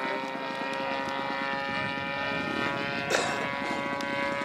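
The 26cc CRRC Pro petrol engine of a radio-controlled model plane running steadily in flight, an even propeller tone that holds its pitch. A single sharp click sounds about three seconds in.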